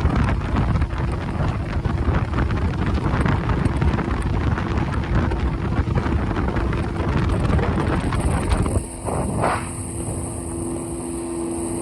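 Jet boat running fast on a lake: engine and rushing water under heavy wind buffeting on the microphone. About eight and a half seconds in it turns quieter, leaving a steady low hum and a high hiss.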